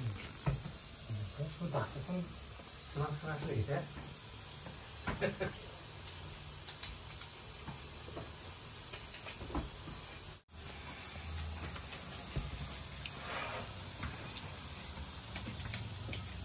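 A steady high-pitched hiss throughout, with faint, indistinct voices in the background; the sound cuts out for an instant about ten seconds in.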